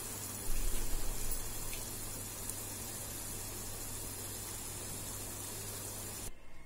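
Thick mutton masala gravy sizzling and bubbling in its oil in the pot as it is roasted, a steady hiss over a low hum. It cuts off suddenly near the end.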